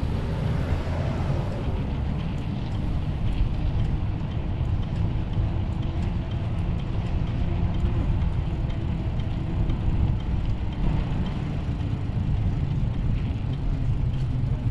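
Steady low rumble of wind and road noise heard while riding a bicycle, with wind buffeting the microphone.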